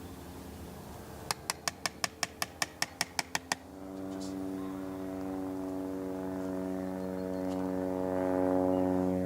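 About a dozen quick, sharp, evenly spaced taps, about five a second, as a chisel is worked into tree bark to cut a slit for a graft. A steady engine hum runs underneath and grows louder once the taps stop.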